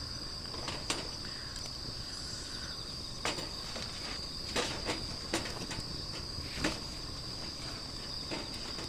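Insects chirring in one steady high tone, with irregular sharp crackles from the wood fire burning in the fire pit.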